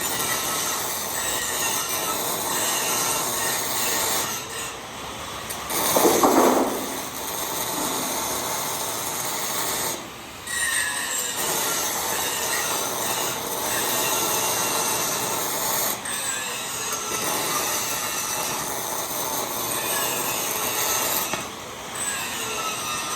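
MIG welding arc crackling steadily in runs, broken by short pauses between welds on hex mesh, with a louder burst about six seconds in.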